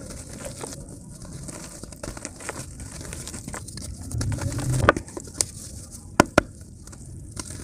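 Chunks of dry clay crumbling and breaking in wet hands over a tub of muddy water: a run of soft crackles and gritty crumbling as crumbs drop into the water, with a brief muffled rumble about four seconds in and several sharp cracks in the second half.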